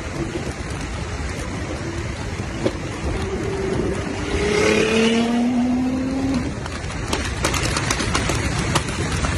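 Nissan GT-R engine accelerating, its pitch rising through the middle, over heavy rough noise, with a run of sharp crackles near the end.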